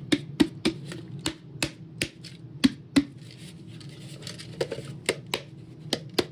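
Irregular sharp clicks and taps of hard plastic Roomba parts being handled, about fifteen in all, bunched in the first three seconds and again near the end.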